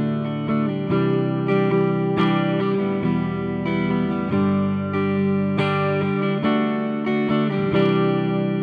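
Guitar played through a Valeton GP-200 multi-effects processor on a fairly clean preset, with chords strummed and picked in a steady rhythm. Near the end the last chord is left ringing and fades.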